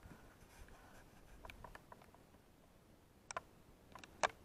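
A few faint ticks, then two sharp clicks or snaps about a second apart, the second the loudest, against otherwise quiet woods.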